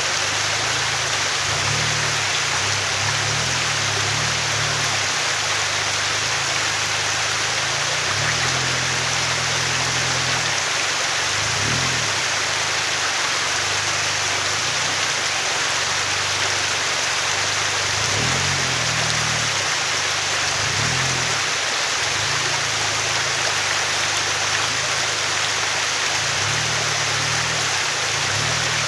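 Rushing stream water close by, a steady hiss, with the engine of a lifted Toyota Hilux Surf rock crawling heard low underneath, rising in short revs several times.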